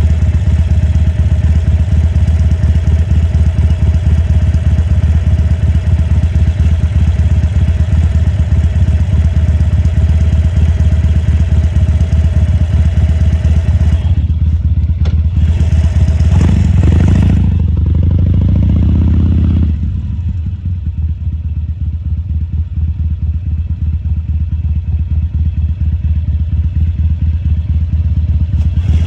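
A 2014 Harley-Davidson Sportster XL1200C's air-cooled 1200 cc V-twin running steadily with a low pulsing beat. About halfway through there is a brief hiss and a short swell in the engine sound, after which it runs a little quieter.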